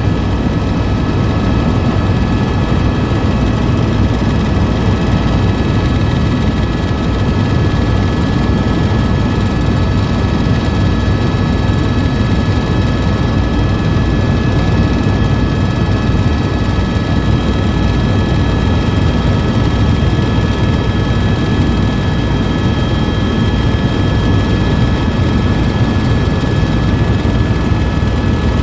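Tour helicopter in flight: a steady loud drone of engine and rotor with a constant high whine over it.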